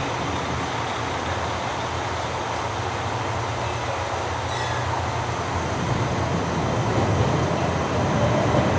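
Diesel train drone from a JR Hokkaido KiHa 283 series express approaching the platform, steady at first and growing louder over the last few seconds.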